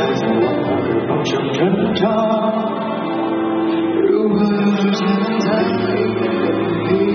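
Two male singers performing a pop duet live over band accompaniment, heard through an arena's sound system from the audience.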